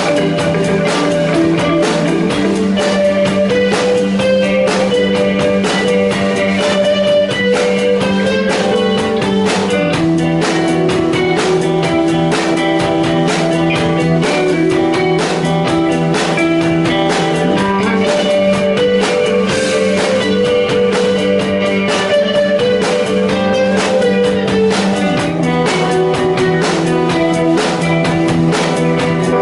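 A live rock band playing an instrumental passage: guitars holding sustained notes over a drum kit keeping a steady beat.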